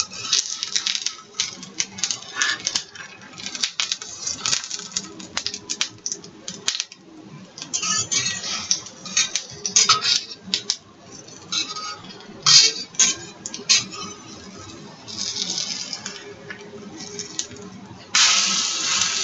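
Kitchen utensils clinking and scraping against a bowl and pan as garbanzo-bean-flour batter is scooped and spread, with a louder hiss near the end.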